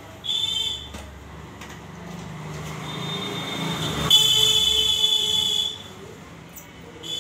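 High-pitched electronic whine from an LG ultra-slim CRT TV chassis just switched on. It comes in stretches: a short burst just after the start, a longer and louder stretch from about four to six seconds with a low hum building beneath it beforehand, and again near the end.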